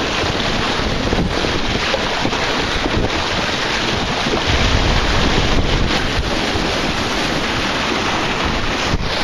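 Strong wind buffeting the microphone over the rush of water along the hull of a Snipe dinghy sailing fast in gusty wind, briefly louder about halfway through.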